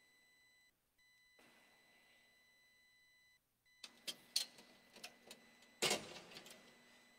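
Objects being handled at an altar: a few sharp clicks and knocks from about four seconds in, the loudest a thud just before the end. A faint steady high tone sits under them and drops out briefly twice.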